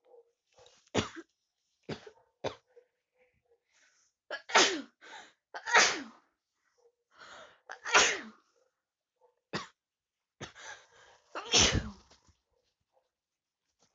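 A person with a cold sneezing repeatedly, about five loud sneezes a few seconds apart, with short breaths and sniffles between them.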